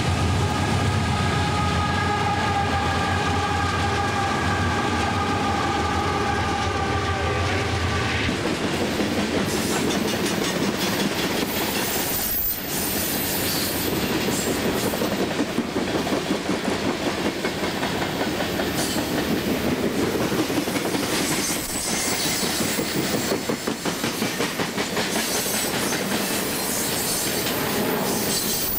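Loaded coal train passing at speed behind three GE AC4400CW diesel locomotives: engine rumble and a steady air horn blast that cut off abruptly about eight seconds in, followed by coal hoppers rolling by with continuous wheel noise and a rhythmic clickety-clack over the rail joints.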